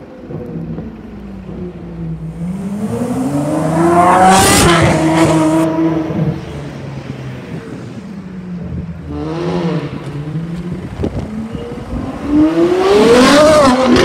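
Ferrari V12 supercars with Novitec exhausts accelerating hard from low speed. The engine note climbs steeply to a loud peak about four to five seconds in, then drops as the car shifts. A shorter rise and fall comes around nine to ten seconds in, and a second hard, climbing acceleration peaks near the end.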